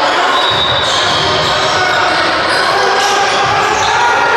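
Basketball game sounds in a large gym hall: the ball bouncing on the hardwood floor amid players' voices, with no single event standing out.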